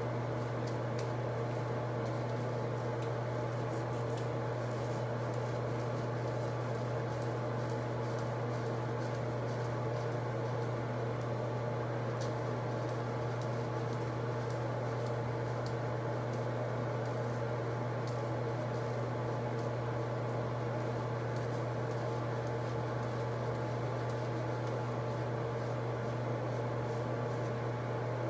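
Steady low mechanical hum, unchanging throughout, with a few faint soft ticks scattered over it.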